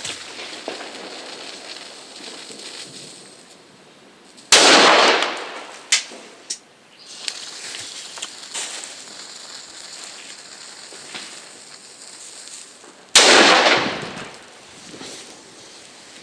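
Two black petard firecrackers going off, each a single sharp bang with a tail lasting about a second, roughly nine seconds apart. A few smaller sharp cracks come shortly after the first bang.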